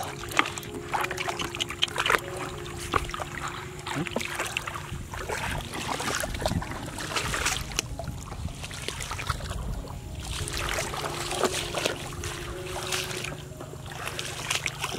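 Shallow floodwater splashing and trickling among grass, with many short sharp clicks and knocks throughout. A faint steady hum comes and goes.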